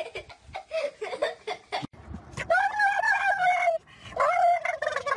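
A dog howling: two long, drawn-out calls, each about a second, in the second half, after a couple of seconds of short scrappy sounds.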